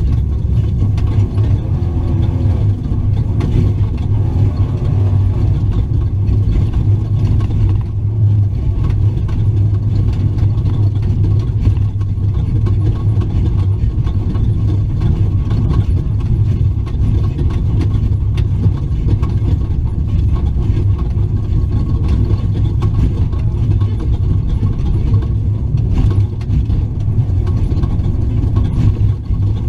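Engine of a Ford Raptor off-road race truck running steadily, heard from inside the cab, with scattered knocks and rattles.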